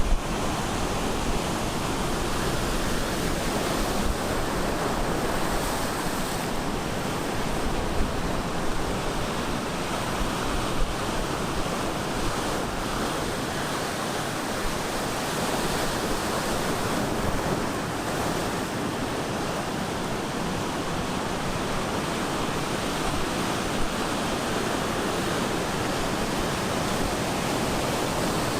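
Ocean surf breaking on a beach: a steady, dense wash of crashing waves, with some wind buffeting the microphone.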